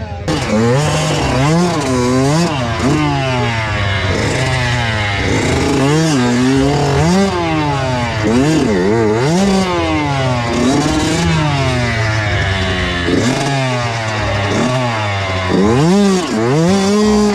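Kawasaki KX85 single-cylinder two-stroke dirt bike engine revving hard, its pitch rising and falling over and over as the throttle is blipped and rolled on and off.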